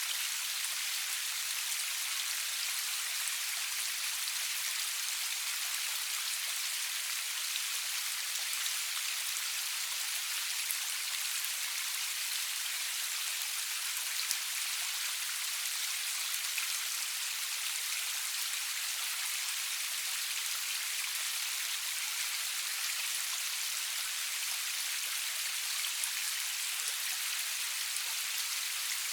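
Steady rain falling, an even high hiss with small scattered drop ticks, no thunder.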